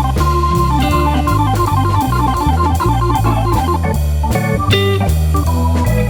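Background music: a blues-style tune with guitar and organ over a steady bass beat.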